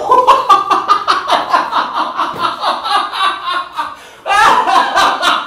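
Loud, joyful laughter from the actors, a fast run of rapid bursts that drops away briefly about four seconds in and then starts up again.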